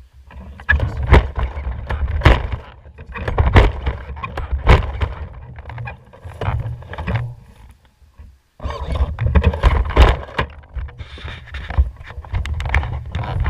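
Onboard sound from an HPI Baja 5B large-scale RC buggy driving over rough ground: an uneven low rumble with frequent knocks and rattles as the chassis hits bumps. The sound drops out almost completely for about half a second just after eight seconds in.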